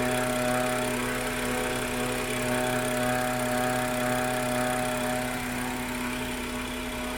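BMW N55 turbocharged straight-six, fitted with the M Performance Power Kit, running steadily with a whine over the engine hum; the whine softens slightly about five seconds in.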